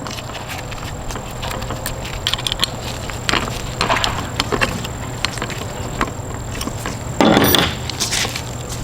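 Clicks, knocks and rubbing of a 37mm launcher with a 3D-printed plastic folding stock adapter being handled, with a louder half-second scrape about seven seconds in. A steady low hum runs underneath.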